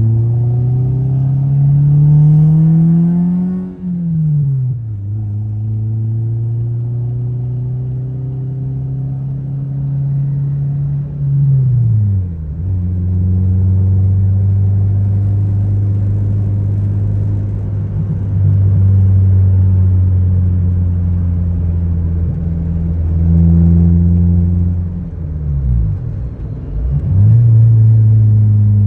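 1996 Honda Civic's four-cylinder engine pulling through the gears on a drive, its pitch climbing then dropping at each gear change before settling into a steady cruise. It sounds loud and obnoxious through a worn exhaust that needs fixing and is hitting the frame.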